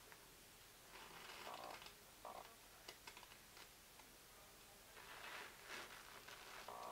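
Faint, short whirring of the animatronic Baby Yoda (The Child) toy's small motor, twice, about a second in and again just after two seconds, as its head turns. Soft rustling of its cloth robe under the hand also comes through, with a longer patch of it about five seconds in.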